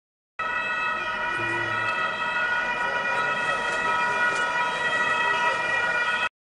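Carabinieri patrol car sirens sounding as the cars approach, several steady tones at once; the sound starts abruptly and is cut off suddenly near the end.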